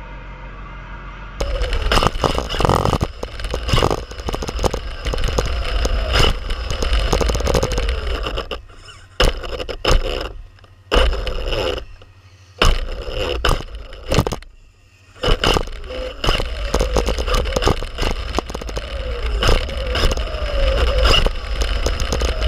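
Radio-controlled car driving fast on tarmac, heard from a camera mounted on the car: a loud, dense rattle and scrape of tyres and chassis vibration, with a faint motor whine rising and falling. The noise drops away briefly several times in the middle.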